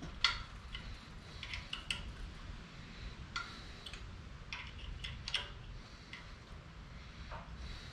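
Irregular light metallic clicks and clinks of tools and small metal parts being handled, over a faint low steady hum. The sharpest click comes right at the start, and there is another cluster about five seconds in.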